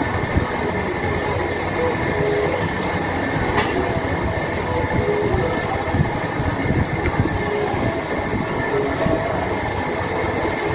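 Steady background din of a busy restaurant, with a sharp click about three and a half seconds in.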